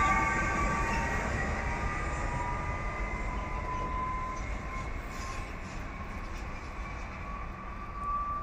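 Koleje Śląskie Pesa Elf electric multiple unit running through the station and receding, its rumble and a thin high whine fading steadily as it draws away.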